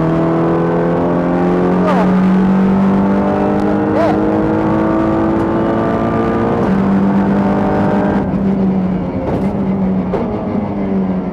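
Audi RS3 LMS TCR race car's turbocharged four-cylinder engine pulling hard, its note climbing steadily for several seconds, then changing abruptly about two-thirds of the way in and holding steadier near the end, with a couple of sharp clicks early on.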